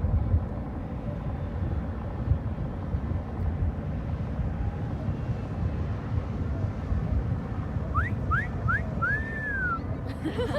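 Steady low background rumble, then near the end someone whistles: three quick rising whistles followed by one longer whistle that rises and falls, a whistle described as lousy.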